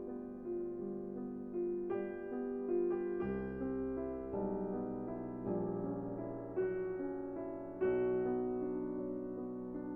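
Background music: a gentle piano or electric-piano piece playing sustained chords that change about once a second.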